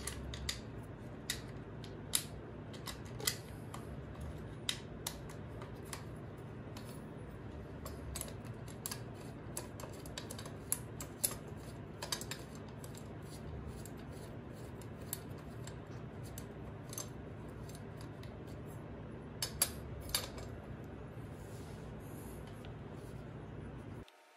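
Irregular light metallic clicks and taps as chainring bolts and an aluminium chainring are handled and fitted by hand onto a Shimano Deore crank, over a steady low hum.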